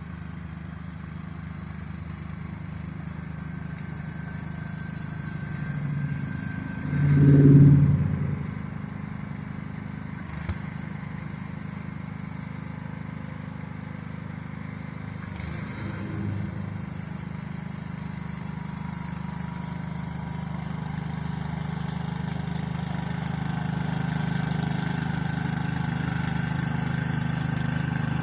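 Car engine and road noise, a steady low drone, with a brief louder swell about seven seconds in and a single sharp click a few seconds later.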